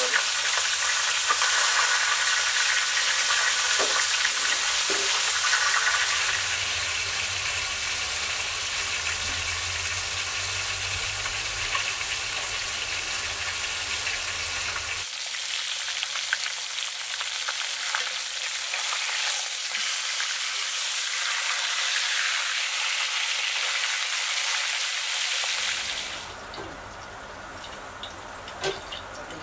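A whole fish sizzling in hot oil in an iron wok: a steady frying hiss that drops away suddenly about 26 seconds in, leaving only a few faint clicks.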